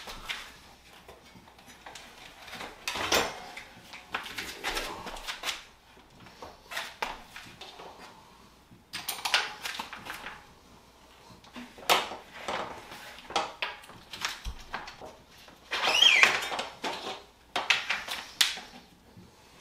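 Mountain bike rear wheel being refitted into the frame: irregular clicks, knocks and metallic chain rattle as the cassette is worked into the chain and the axle goes in, with a short squeak about three-quarters of the way through.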